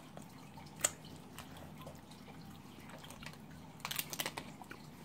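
Brief crinkling of a plastic candy wrapper being handled about four seconds in, after a single sharp click about a second in, over a low steady room hum.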